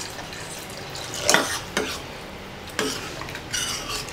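Water poured into a stainless-steel pot of sambar, then a steel ladle stirring the thick mixture, knocking and scraping against the pot several times.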